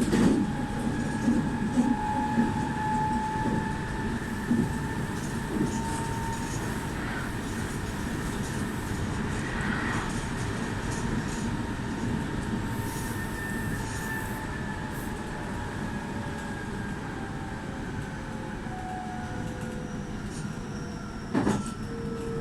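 Meitetsu 2000 series μSKY electric train running, heard from inside the car: a steady rumble of wheels on rail with the traction motors' whine, whose pitch falls slowly as the train slows. A sharp knock near the end.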